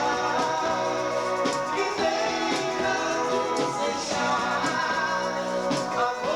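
A band's dance music, with sustained pitched instruments over a drum beat landing about once a second.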